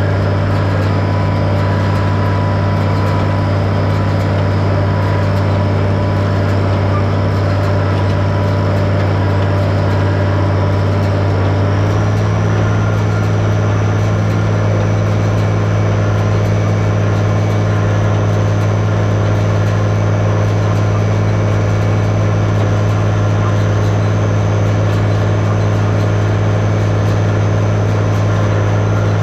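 Tractor engine running steadily while pulling a hay baler in the field. About twelve seconds in, the engine note steps up slightly and holds at the higher speed.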